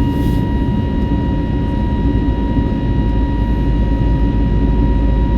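Steady in-flight cabin noise of an Airbus A320neo: a loud, even low rumble of engine and airflow noise, with a thin steady whine of several high tones over it.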